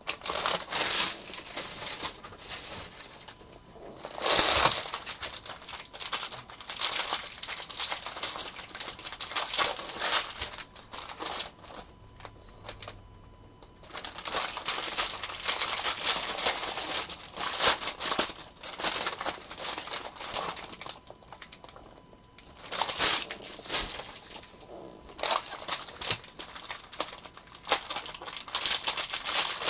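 Baseball card packs being opened and handled: wrappers crinkling and tearing, and cards clicking as they are flicked through, in busy bursts with a few short pauses.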